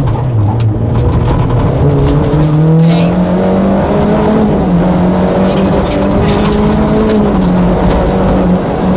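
Renault Clio Williams rally car's 2.0-litre four-cylinder engine at full throttle, heard from inside the cabin: the engine note climbs steadily over the first three seconds, then holds high with slight wavers as the car runs flat out.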